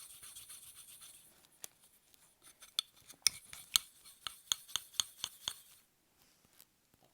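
A scratchy rubbing on paper for about the first second, then a quick run of sharp snips, about four a second for some three seconds: scissors cutting paper.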